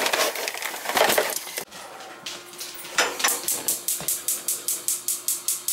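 Knocks and rustling, then from about halfway a gas range's spark igniter clicking rapidly and evenly, about six clicks a second, as a burner lights: a check that gas is flowing again after the supply was shut off.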